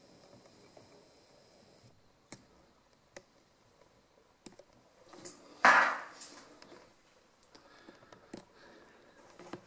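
Quiet, still room with a few faint clicks, and one sudden loud noise about halfway through that dies away within half a second.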